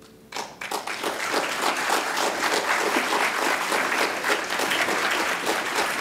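Audience applauding at the end of a string orchestra piece. The clapping breaks out about a third of a second in and within a second builds to dense, steady applause.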